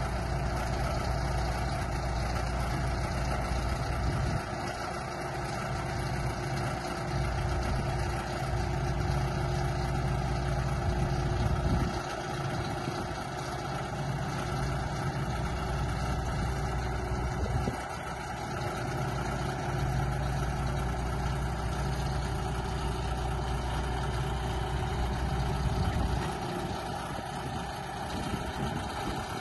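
Diesel engine of a 2005 Manitou MT 1740 SLT telehandler running steadily while its hydraulics lower the telescopic boom, the engine note changing in strength several times.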